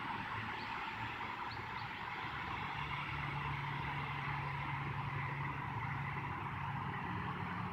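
Steady outdoor background noise with no gunshot, joined by a low steady hum about two and a half seconds in.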